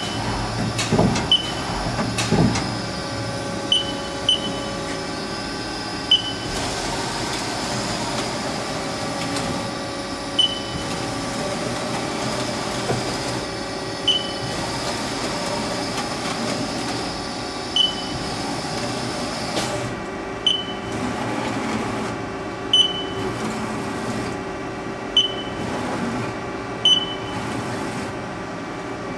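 2008 Haas SL-20 CNC lathe's 10-station tool turret indexing through tool changes, each index ending in a short sharp clunk that rings briefly, about a dozen times at irregular intervals of one to four seconds. A steady machine hum runs underneath, and a high hiss in it stops about two-thirds of the way through.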